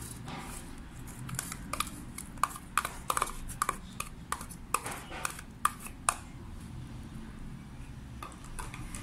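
Light, sharp clinks and taps on a stainless steel mixing bowl as chopped onion is emptied into it, a quick irregular series over a few seconds that thins out after about six seconds.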